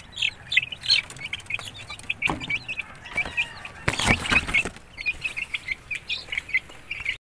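Young game fowl peeping, many short high calls in quick succession, with a brief louder rustle about four seconds in.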